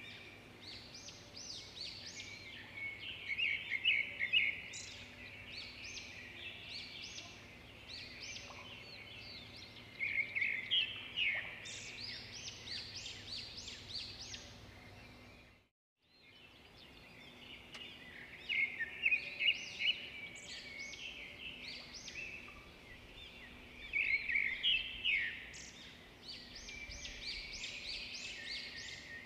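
Small birds chirping and twittering in repeated flurries of quick notes over a faint steady background, with a brief dropout to silence about halfway through.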